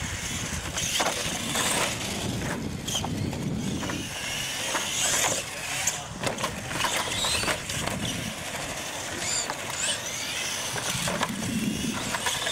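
Radio-controlled monster trucks racing on concrete: their motors whine up and down in pitch as they accelerate and slow, with a few sharp knocks as trucks hit and land off the ramps.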